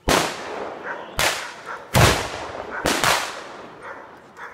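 Four loud black-powder gunshots fired in quick succession, under a second apart, each followed by a fading echo.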